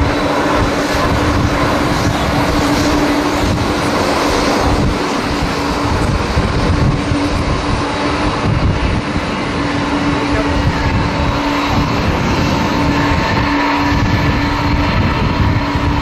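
Boeing 737 airliner's jet engines at takeoff thrust as it lifts off and climbs out, a loud steady rushing noise with a steady hum, mixed with gusty strong wind buffeting the microphone.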